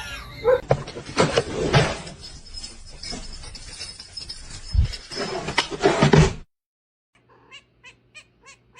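A cat's short cry amid scuffling, knocks and thumps, cutting off sharply about six and a half seconds in; a few faint light ticks follow.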